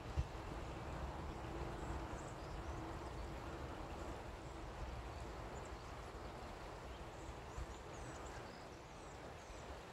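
Outdoor park ambience: a steady low rumble of wind on the microphone, with faint bird chirps that come more often in the second half.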